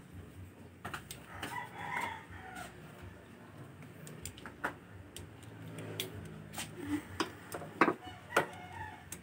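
A rooster crows once in the background about a second and a half in, one call falling in pitch at the end. In the second half, hands fitting parts around a scooter's fuel injector and throttle body make a series of sharp clicks and knocks, the loudest near the end.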